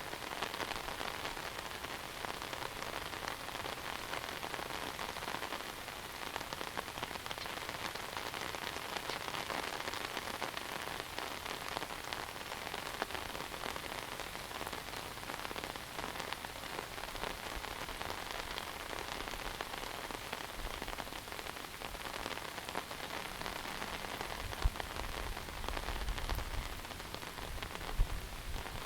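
Heavy monsoon rain falling steadily, an even hiss of rain on surfaces. Near the end there is a low rumble and two sharp, dull knocks.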